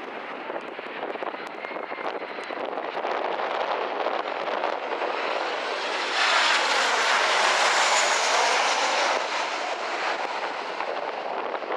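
Jet airliner passing on its landing approach: the engine noise swells to a peak about six seconds in, holds for around three seconds with a sweeping change in pitch, then fades.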